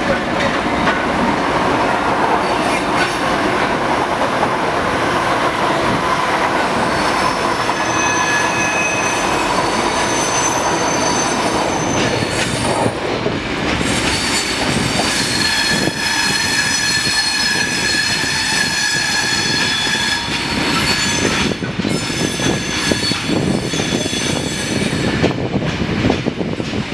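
Freight train wagons rolling steadily past, their wheels squealing in high, steady tones, once briefly and then again for several seconds in the middle.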